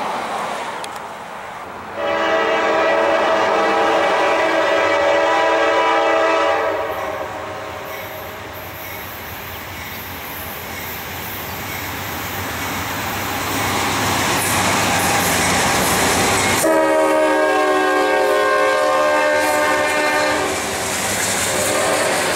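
Norfolk Southern diesel freight locomotive horns sounding a chord of several tones: a long blast from about two seconds in, lasting some four and a half seconds, then the rumble of the train. A second long blast comes about two-thirds of the way through, and a third begins near the end as the freight cars roll past with a clickety-clack.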